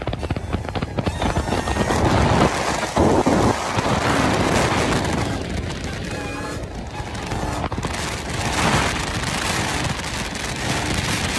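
Wind buffeting on the microphone and road noise of vehicles moving at highway speed, a loud, uneven rumble and rush with surges.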